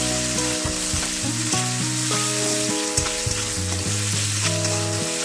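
Chopped onion, garlic and whole spices sizzling in hot oil in an aluminium kadai, stirred with a metal spatula that scrapes the pan now and then. Soft background music plays underneath.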